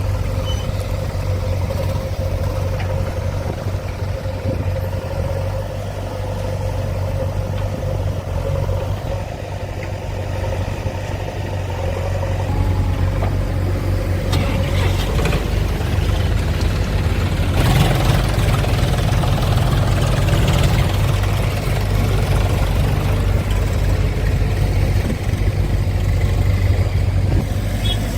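Heavy diesel engine running steadily, getting louder about halfway through, with a rush of noise in the middle stretch.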